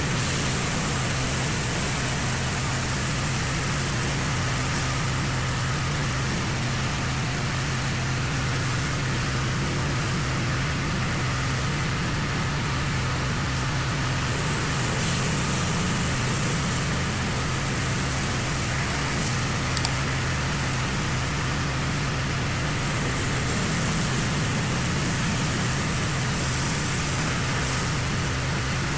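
Pressure washer running steadily: a constant motor hum under the even hiss of high-pressure water spray on a driveway.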